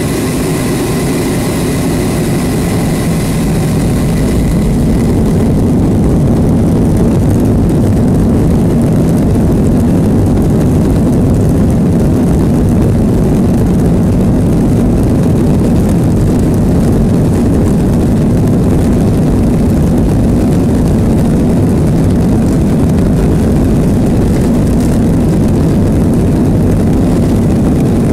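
Jet engines of a Boeing 737, heard from inside the cabin over the wing: a steady low rumble that grows louder a few seconds in and then holds, while a thin high whine fades out early, as the plane taxis onto the runway.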